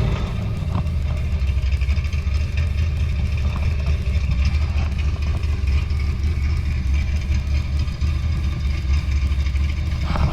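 A freshly built Holden VN Calais engine idling steadily while it is being tuned, its injector and spark timing settings not yet fully sorted.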